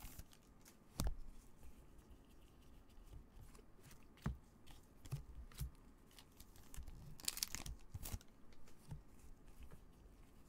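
Quiet handling of a foil trading-card pack: the wrapper crinkling and tearing, with a few light clicks of cards being handled, and a longer crinkle about seven seconds in.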